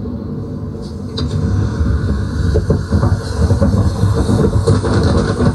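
Road noise from inside a moving vehicle at highway speed: a steady low rumble with wind rushing over the phone's microphone, growing louder about a second in.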